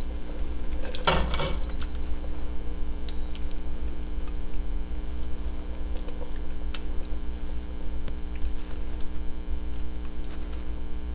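Chili being ladled from an enamelled Dutch oven into a bowl: soft scrapes and clicks of a silicone ladle against the pot and bowl, with a louder clatter about a second in, over a steady low hum.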